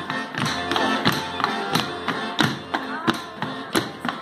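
Bavarian folk dance music playing, with a sharp tap marking the beat about three times a second.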